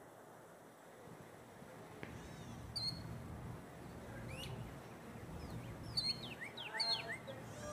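Birds calling: scattered short, high chirps and quick sliding notes, coming thicker about six seconds in.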